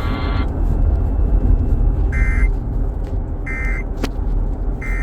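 Steady low rumble of a car on the road, heard from inside. Three short electronic beeps sound about a second and a half apart over it, with a single click between the second and third.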